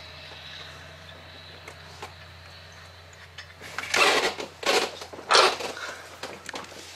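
Low steady hum, then, about four seconds in, several loud bursts of metal-on-metal scraping and clanking as hand tools work at the cast iron exhaust manifold of a 3800 V6.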